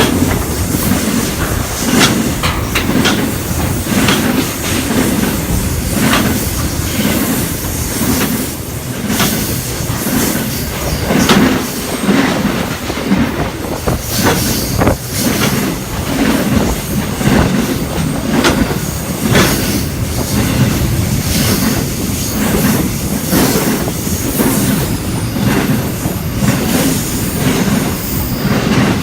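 Freight train led by locomotive G534 rolling through the station, its wagons passing in a steady loud rumble with repeated clicks of wheels over rail joints.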